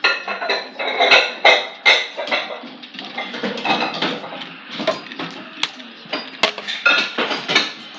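Plastic mini hockey sticks and ball clacking and clattering in quick, irregular knocks during knee hockey play.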